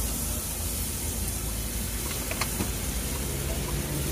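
Egg mixture sizzling and hissing on a hot tawa as liquid is poured onto it and stirred with a metal spatula, with a few faint clicks of the spatula on the griddle.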